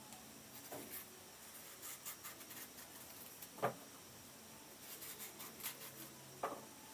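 Faint rubbing and scraping of bananas being handled, with three sharp taps: one about a second in, one midway, and one near the end.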